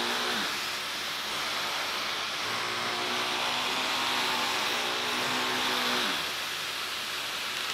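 Forvac Cobalt vacuum cleaner running: a steady rush of air over a motor hum whose pitch wavers and drops about six seconds in.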